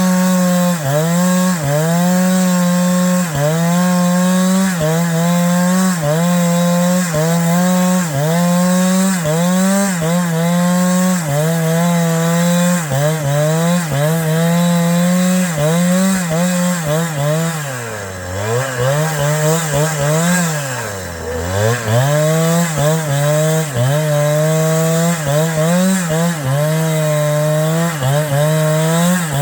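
Chainsaw running at high revs while cutting wood, its pitch dipping briefly about once a second as the chain bites. It bogs down hard twice, around the 18 and 21 second marks, before picking back up.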